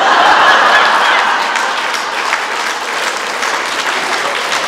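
Audience applauding, loudest in the first second or so and then easing slightly but carrying on.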